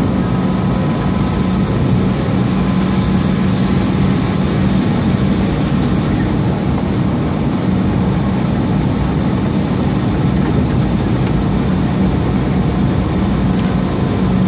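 Semi-truck's diesel engine and road noise heard inside the cab while cruising at freeway speed: a steady low drone with a constant hum.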